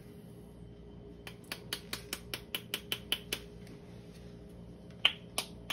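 Plastic measuring spoon tapped over a stainless steel mixing bowl to knock dried Italian seasoning out onto ground chicken: a quick run of about ten light clicks, about five a second, then two louder clicks near the end.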